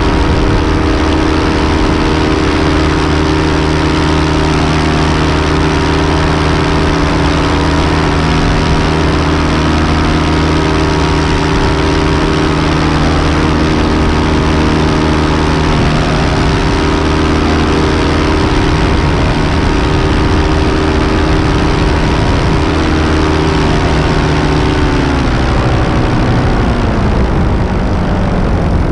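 Paramotor's Miniplane Top 80 two-stroke engine and propeller running steadily in flight. Over the last few seconds the engine note falls in pitch.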